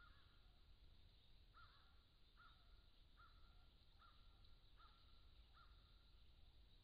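Faint bird calls: one call, then after a short pause a steady series of six more, a little under one a second, each a short held note on the same pitch.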